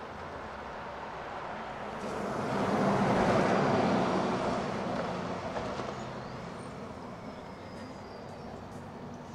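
A train passing by: its rumbling noise swells up about two seconds in, peaks, and fades away over the next few seconds, over a steady low hum of city background.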